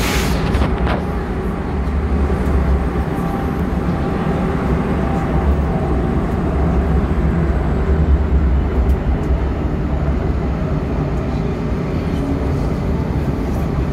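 M4 metro train running, heard from inside the car: a steady low rumble of wheels and running gear, with a brief hiss right at the start.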